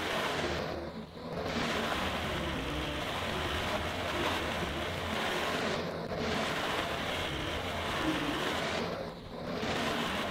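Diesel engine of a tracked skid loader running steadily under load as it pushes through sawdust, its sound dipping briefly a few times.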